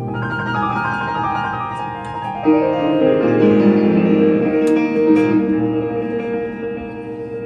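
Jazz keyboard passage played on a grand piano and a stage keyboard together: a run of piano notes, then sustained held chords that come in strongly about two and a half seconds in, with a descending line moving beneath them.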